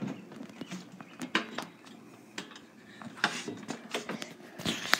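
Handling noise from a phone being moved about: scattered small clicks and rustles.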